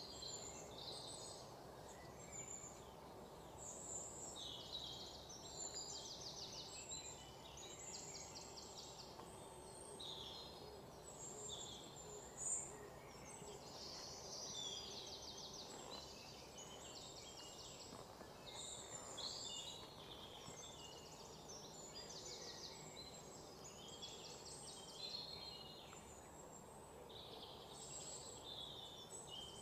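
Small birds chirping and trilling over and over, high-pitched, over a faint steady background hum. One sharp click a little before the middle.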